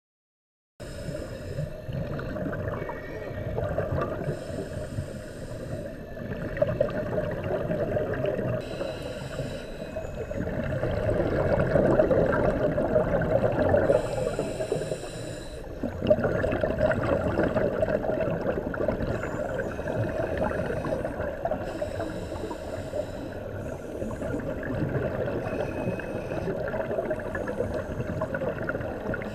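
Muffled underwater noise picked up by a camera in its waterproof housing: a steady rumble with bubbling that swells and fades every few seconds. It starts just under a second in.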